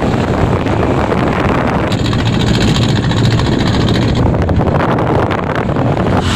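Strong wind buffeting the microphone, a loud steady rumble; a higher hiss joins for about two seconds in the middle.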